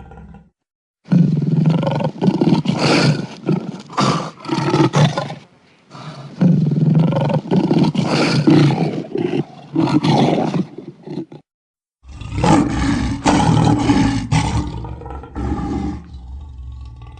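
Custom creature sound effect of a kraken roaring: three long, rough roars, each a few seconds long, cut apart by brief moments of total silence.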